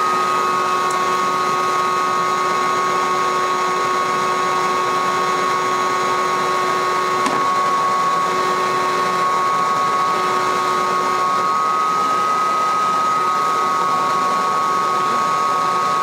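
Vacuum running steadily with a constant whine, sucking up honey bees from a cavity under the floorboards.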